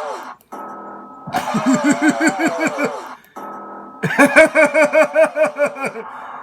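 A looped, edited snippet of a voice making comic sounds, heard twice in a row and cut off abruptly each time. Each loop has a short steady tone, then a falling wail, then a fast stutter of about six pulses a second like chuckling, over cartoon background music.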